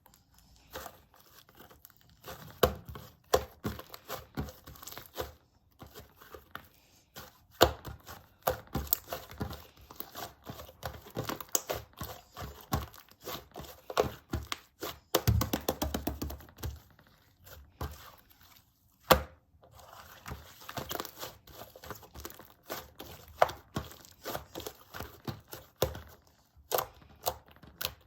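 Slime being kneaded, pressed and stretched by hand, making irregular sticky clicks, pops and crackles, with a denser run of crackling about halfway through.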